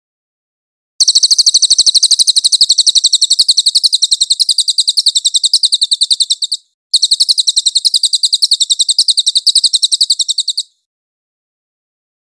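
Crested jay (cililin) calling: two long, fast, high-pitched rattling trills, the first about five and a half seconds long and the second about four, with a brief break between them.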